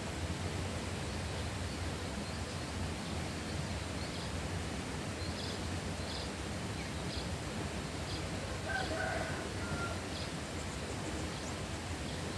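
Rural outdoor ambience: a steady hiss underlies scattered short, high chirps from small birds, and a chicken calls briefly about nine seconds in.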